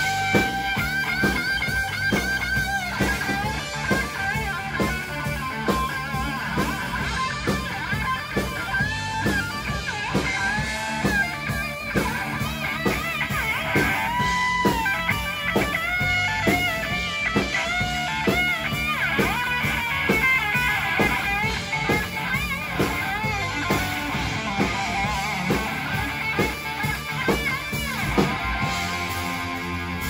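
Live rock band playing loudly: an amplified Stratocaster-style electric guitar plays a lead line with bent notes over a steady drum beat.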